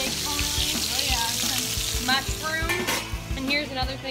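Steak sizzling hard in a hot skillet, a dense, steady frying hiss that eases off about three seconds in.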